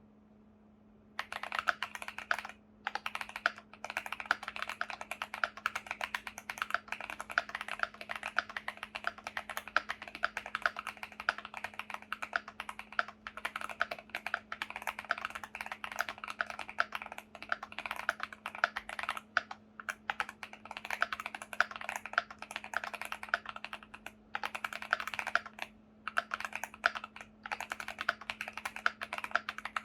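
Fast, continuous typing on a Finalkey V65 r2 mechanical keyboard with stock Betty tactile switches on an FR4 plate, tape-modded, with stock keycaps. The typing starts about a second in and runs with a few brief pauses.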